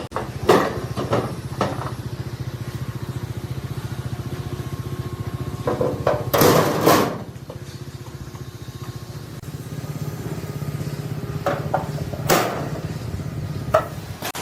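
A small engine running steadily with an even pulse, with several sharp metal knocks over it and a louder rush of noise about six to seven seconds in.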